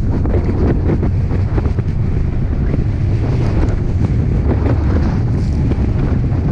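Strong wind buffeting the microphone on a 17 ft Boston Whaler running through rough chop, over a steady low rumble of the boat underway and frequent short slaps of water against the hull.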